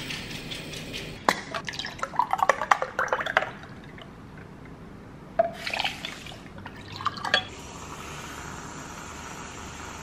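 Dry uncooked rice pouring from a glass jar into a glass tumbler with a hissing rattle, stopping about a second in, followed by clinks and rattles of kitchenware. Coconut cream then pours from a tin into a pot with liquid dripping and splashing.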